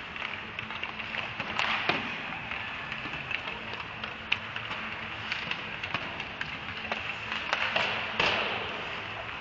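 Ice hockey play in an echoing arena: skate blades scraping on the ice, with longer scraping swishes about two seconds in and again near the end, and frequent sharp clacks of sticks on the puck and ice over a steady low hum.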